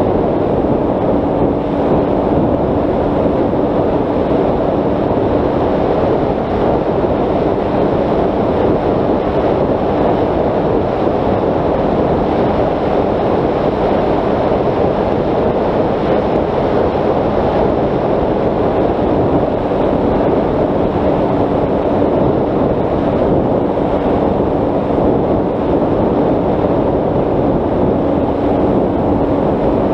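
Onboard sound of a Bixler 3 RC plane in flight: its brushless motor and 10x7 propeller running with a steady hum under a loud, even rush of wind on the microphone. The motor's hum grows fainter for a stretch in the middle, then returns.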